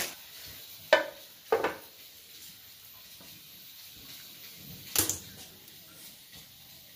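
A lid set onto a serving dish with two sharp clacks about a second in, then a single knock about five seconds in; faint handling noise from hand-peeling a potato fills the gaps.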